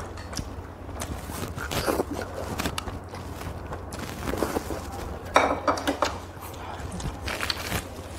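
Two people eating instant noodles with chopsticks: a series of short slurps and mouth noises, the loudest about five and a half seconds in.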